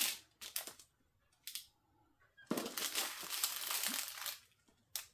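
Small plastic packets of diamond-painting drills crinkling as they are handled, in several short bursts with a longer stretch of crinkling from about halfway through.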